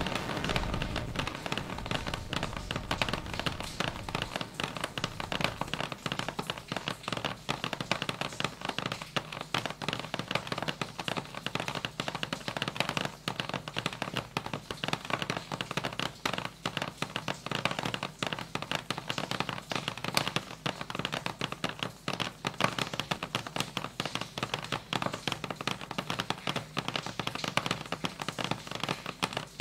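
Dense, continuous crackle of rapid, irregular taps and clicks, a live-mixed and electronically manipulated sound-art texture. The deep rumble underneath drops out about a second in.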